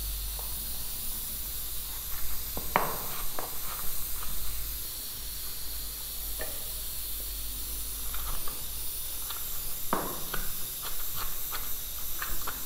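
Steady hiss from cooking on the stove, with scattered light knocks and clinks of a utensil against a dish, more frequent near the end.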